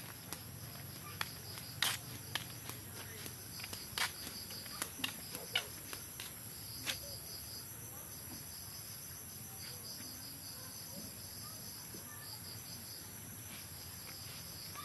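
Insects, crickets by their sound, trilling steadily in a continuous high pulsing buzz. A handful of sharp taps and clicks in the first half, then only the trill.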